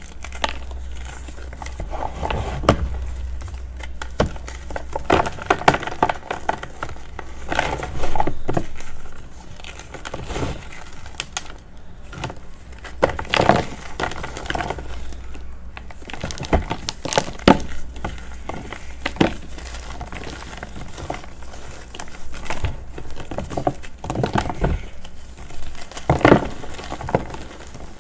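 Reformed gym chalk blocks crunching and crumbling under the fingers as chunks are squeezed and broken off, in irregular runs of dry crackly crunches.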